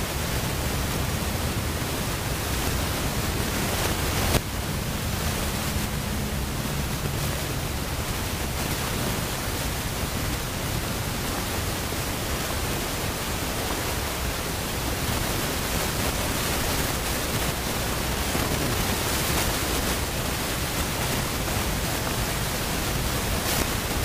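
Steady, even rushing noise on the microphone, with a single knock about four seconds in and a faint low hum under it for the first several seconds.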